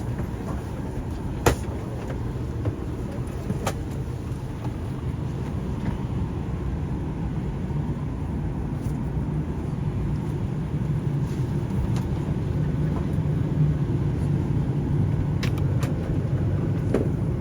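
Jet airliner cabin noise: a steady low rumble of the engines and the aircraft rolling on the ground, growing gradually louder. A few sharp clicks or knocks come through, one about a second and a half in and several near the end.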